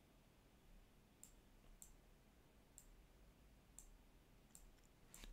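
Faint computer mouse clicks, about six of them spaced roughly a second apart, over near-silent room tone.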